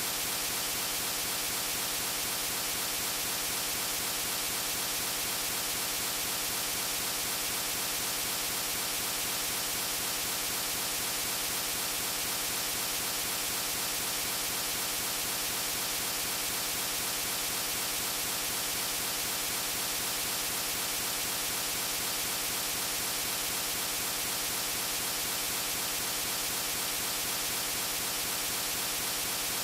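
Steady harsh static with a fast, even repetition: the computer's sound output stuck looping a tiny fragment of audio after a Windows blue-screen crash.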